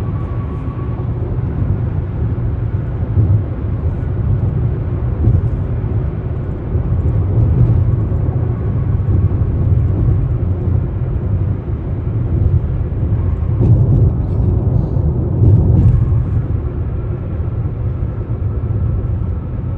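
Tyre noise of a car on concrete highway pavement, heard inside the cabin: a steady low rumble that swells louder for a couple of seconds about three quarters of the way through.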